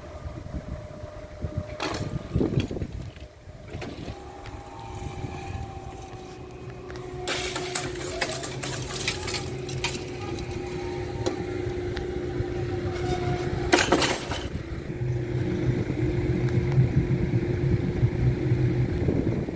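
Vehicle traffic running past, with a steady engine hum throughout and a low rumble that grows louder in the second half. There are short loud rushes of noise about eight and fourteen seconds in.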